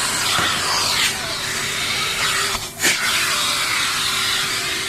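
Numatic Henry canister vacuum cleaner running, with a steady rushing of air through the hose and a motor hum. The suction briefly dips near the middle, followed by a short knock.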